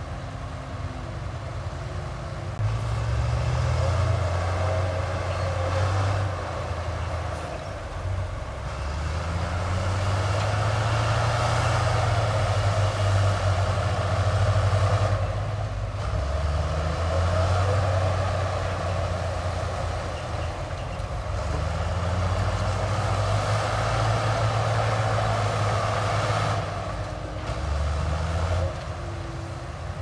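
Heavy diesel engine of a working machine under changing load, its note rising and falling in about five surges.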